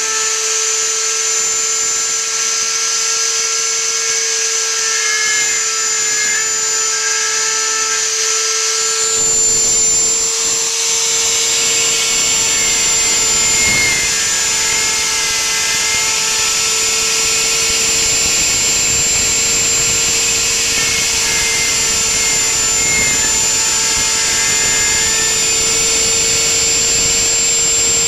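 Spindle of a homemade CNC router running with a steady high whine while its small bit carves lettering into a softwood board. About nine seconds in, a rougher, fuller noise of the bit cutting the wood joins it.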